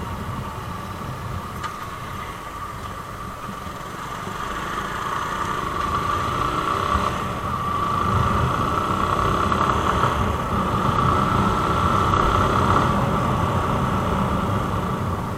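Motorcycle engine running while riding along a road, with wind and road noise and a steady high hum. The engine grows louder from about five seconds in as the bike speeds up.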